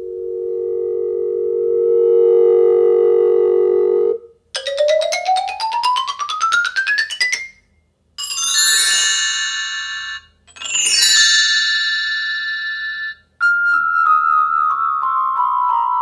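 Synthetic transition sound effects in a row. First an "appear" whine: a steady tone that swells and gathers higher overtones, then cuts off after about four seconds. Next comes a rising sweep, then two shimmering bell cascades, and last a bell cascade of ringing tones that steps down in pitch.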